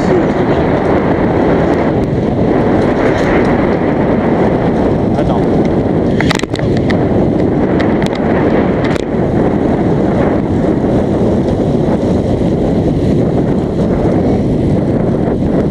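Wind rushing over the microphone of a camera mounted on a moving bicycle, a steady low rumble. A couple of short sharp rattles or clicks, about six and a half and nine seconds in.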